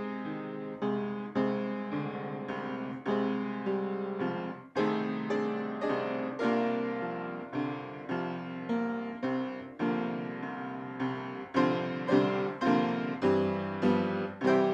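Piano music: slow chords struck one after another, each left to ring and fade before the next.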